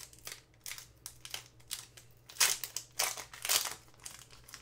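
Foil hockey card pack wrapper crinkled and crumpled in the hands: a run of short rustling crackles, loudest about halfway through.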